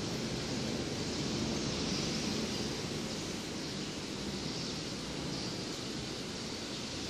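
Steady hiss and low rumble of a large factory hall's background noise, with no distinct events.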